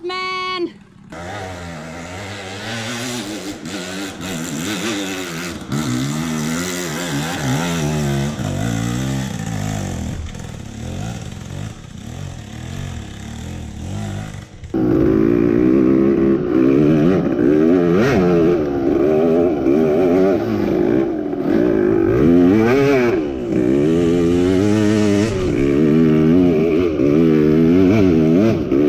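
KTM EXC two-stroke dirt bike engine revving up and down as it is ridden, its pitch rising and falling over and over. About halfway through it turns abruptly louder and keeps revving hard.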